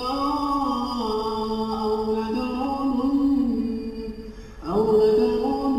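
A man's voice chanting Quran recitation in the melodic tajweed style, drawing out long held notes that step up and down in pitch. It dips briefly about four seconds in, then starts the next phrase.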